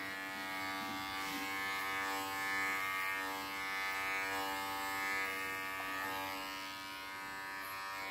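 CODOS pet clipper with a 13 mm ceramic blade running with a steady electric buzz as it shaves a dog's tangled, matted coat. It grows a little louder about two to three seconds in.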